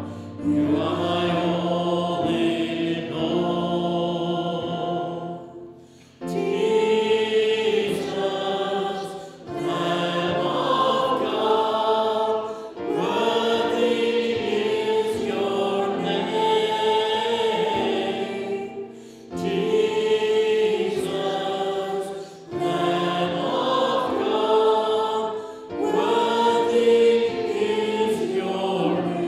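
A group of voices singing a slow worship song together, in phrases of a few seconds with short breaks between lines, moving from the end of a verse into the chorus about six seconds in.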